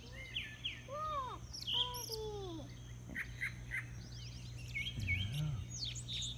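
Several songbirds singing in a dawn chorus: overlapping chirps, falling whistles and quick trills, over a steady low hum.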